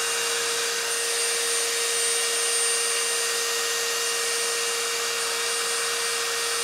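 Electric drill running steadily at high speed with an even whine, spinning an engine valve while its head is pinched in Scotch-Brite, which adds a rubbing hiss as the valve is polished.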